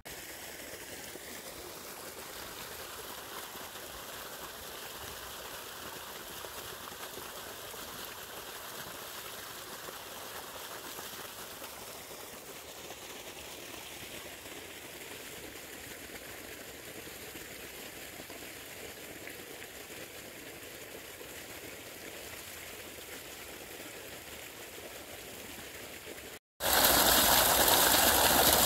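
Irrigation water flowing steadily along furrows, an even soft rush. Near the end it cuts to a much louder gush of water pouring from a well pump's outlet pipe into a ditch.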